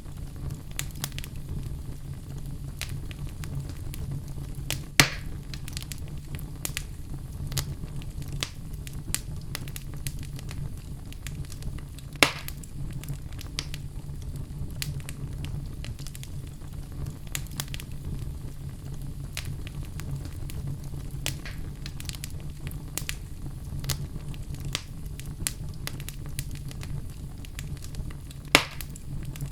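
Wood fire burning in a fireplace: a steady low rumble of the flames with scattered crackles, and three louder sharp pops from the burning logs.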